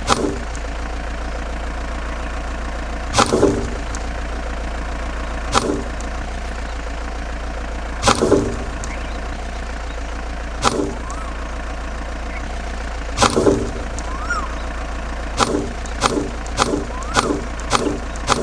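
Small motor of a homemade mini tractor and saw running with a steady hum, with sharp knocks repeating every two to three seconds that come faster, about twice a second, near the end.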